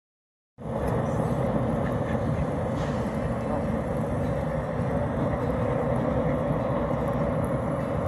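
Steady low outdoor rumble, strongest in the low range with a faint hum in the middle, starting abruptly about half a second in and holding without a break.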